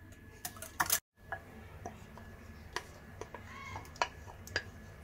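Wire whisk clicking and tapping lightly against a glass bowl while thick curd-and-milk mixture is beaten and then scraped out. The clicks are scattered and uneven, and the sound drops out completely for a moment about a second in.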